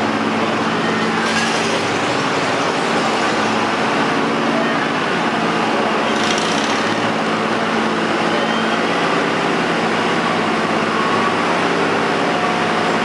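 Riding lawn mower engine running at a steady pitch, without revving up or down.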